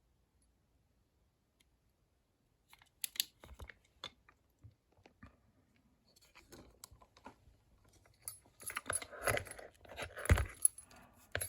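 Metal clicks and scraping of a Scandinavian padlock being handled, its key and shackle moving in the lock body. There are a few sharp clicks about three seconds in, then denser clinking and scraping from about eight seconds on, with one sharp clack near the end.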